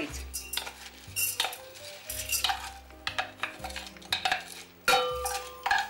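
Wooden spoon scraping wet soaked black rice out of a perforated stainless-steel insert into a stainless-steel pot, with irregular knocks and scrapes of the spoon against the metal.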